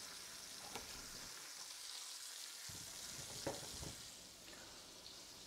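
Smoked bacon slices frying in a stainless steel pot, a steady faint sizzle, with a few light knocks along the way.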